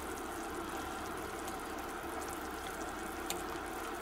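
A pot of soup broth boiling with a steady bubbling hiss, and one faint click about three seconds in.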